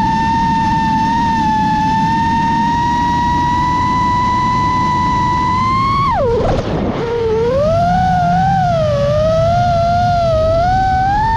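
Brushless motors and propellers of a 5-inch 6S FPV quadcopter whining over wind rush. The pitch holds fairly steady, then about six seconds in it drops sharply as the throttle comes off for the dive. After that it rises and falls with the throttle.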